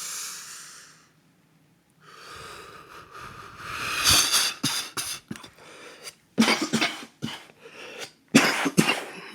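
A person breathing out with a hiss, then a rising rasping breath, then three hard coughing fits of several coughs each, about two seconds apart.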